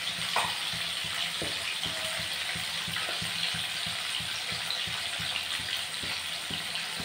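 Catla fish pieces frying in hot mustard oil in an iron kadhai over a high flame: a steady sizzle full of small crackles and pops.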